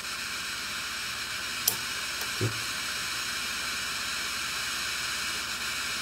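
Small hand torch flame hissing steadily as it heats a thermocouple, with a light click and a soft knock about two seconds in.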